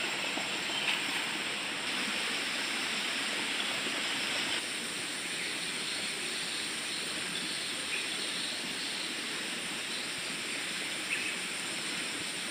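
Steady rush of water flowing in a small stream, with a faint steady high whine above it.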